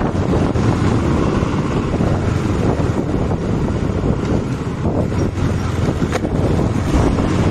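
Wind rushing over the microphone of a motorcycle riding at low speed, over the steady low sound of the bike's engine and tyres on the road.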